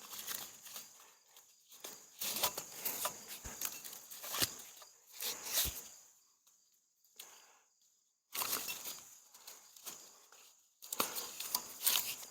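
Close rustling and handling noise from tying up gear on a tree, with a few sharp knocks, over a faint steady high cricket trill. About six seconds in, the sound drops out almost completely for roughly two seconds.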